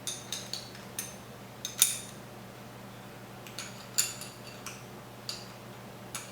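Two small wrenches clinking against a bolt and nut, and against each other, as the nut is tightened: about a dozen light metallic clicks at uneven intervals, each with a brief ring.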